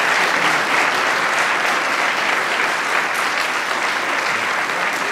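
Audience applauding steadily, a continuous dense clapping.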